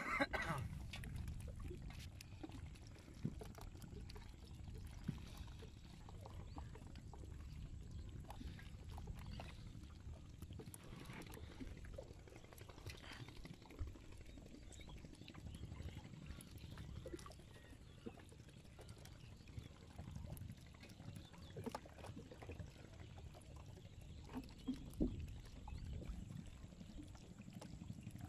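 Faint sloshing and splashing of river water as a man wades waist-deep handling a ring net, over a low steady rumble, with a few soft knocks scattered through.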